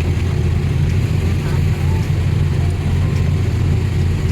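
Steady low rumble of a vehicle on the move, unbroken through the whole stretch.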